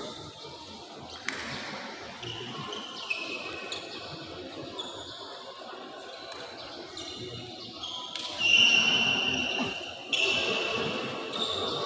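Indoor sports hall ambience: a ball bouncing on the court floor, with a sharp knock about a second in and high steady tones coming and going from the middle on, louder near the end.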